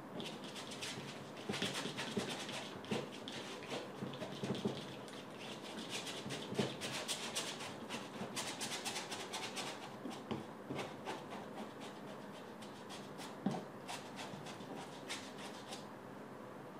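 Flat bristle brush scrubbing paint onto a canvas in many quick, irregular strokes, stopping about a second before the end.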